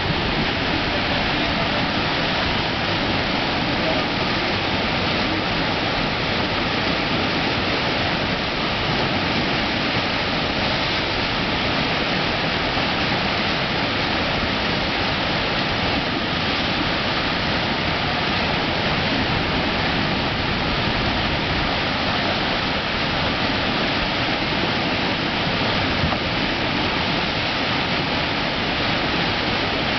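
Whitewater river rapids rushing over rocks, a steady, unbroken rush of water.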